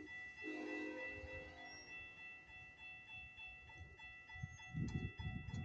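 Railroad crossing warning bell ringing with rapid, even strikes while the gates rise after the train has passed, with a low rumble near the end.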